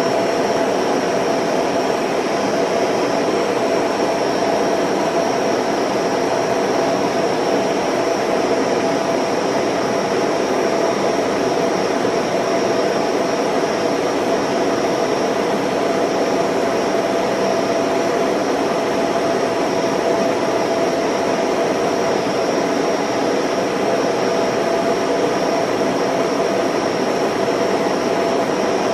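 Film projector running with a steady whirring hiss, holding two constant tones, one midrange and one high.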